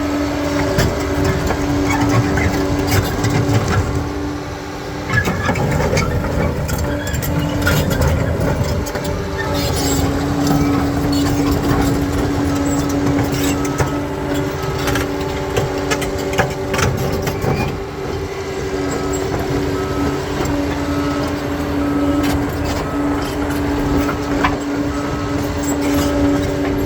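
Bulldozer's diesel engine running steadily under load, with frequent sharp knocks and clatter as it works through rock and stone. A faint, evenly spaced beep repeats through the second half.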